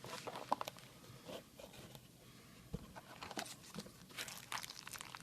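Faint rustling of packing material and light scattered clicks as a shipping box is unpacked by hand, with a quieter pause about two seconds in.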